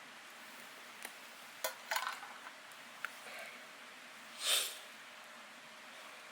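A few light clinks of an eating utensil against cookware during a camp meal, over a faint steady hiss, with a short breathy whoosh about four and a half seconds in.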